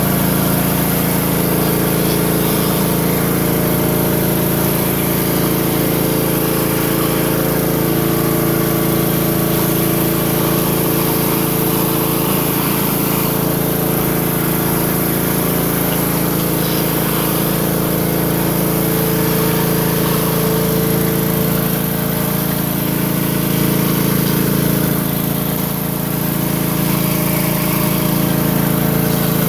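Pressure washer running steadily with a surface cleaner: the even drone of its small engine under a constant hiss of high-pressure water spraying onto the driveway.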